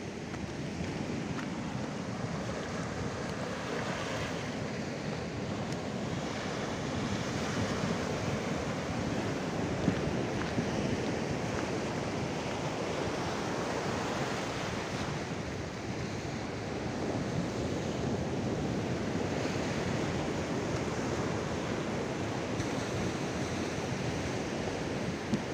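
Sea surf washing and breaking over a rocky shore, a steady rushing noise, with wind on the microphone.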